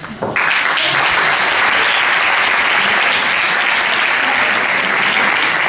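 Audience applauding, breaking out suddenly just after the start and holding steady and loud.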